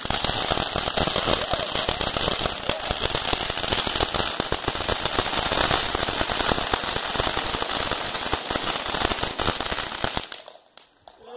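Ground fountain firework spraying sparks with a dense, steady crackle and hiss, which dies out suddenly near the end as the fountain burns out.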